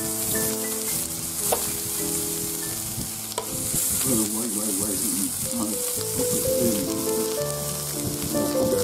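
Shrimp and beef sizzling on a hot electric indoor grill plate, a steady frying hiss with a few sharp clicks as tongs touch the plate.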